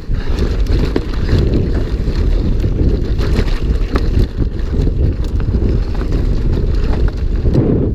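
Wind buffeting the camera microphone on a mountain bike moving fast downhill, with the bike's rattle and knocks over rough trail.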